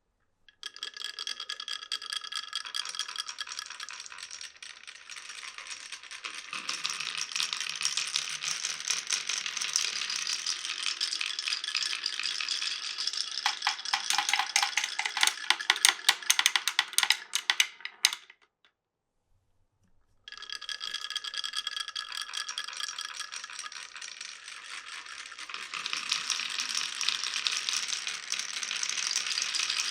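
Many glass marbles rolling and clattering down a wooden marble run, a dense rattle of small clicks. A little past halfway it turns into a quicker string of sharp clacks, then stops abruptly for about two seconds before the clatter resumes.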